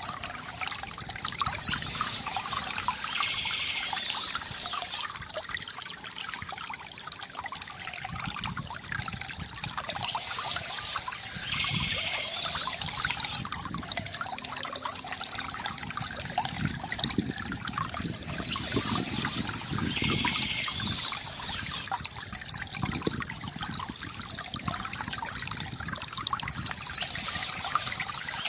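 A stream trickling and babbling steadily, with bird song in short bright phrases that recur about every eight and a half seconds, four times in all.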